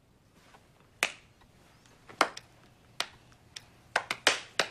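A series of about nine short, sharp clicks at irregular spacing, starting about a second in, with a quick pair a little past the middle and a cluster near the end.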